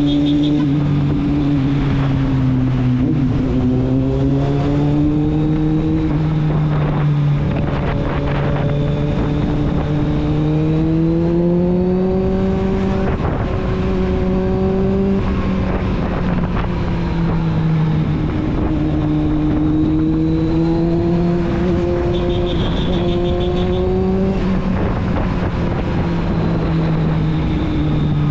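Kawasaki Z750's inline four-cylinder engine and exhaust running at a steady, moderate pace, its pitch rising and falling gently several times as the throttle is eased on and off.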